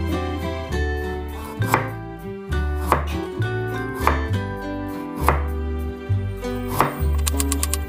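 Chef's knife slicing thin pieces off a peeled burdock root on a wooden cutting board: about five sharp cuts, a little over a second apart, over steady background music.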